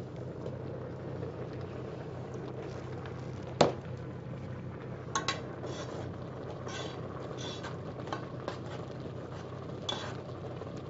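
Occasional light clinks of kitchen utensils and dishes over a steady low hum, with one sharp click about three and a half seconds in.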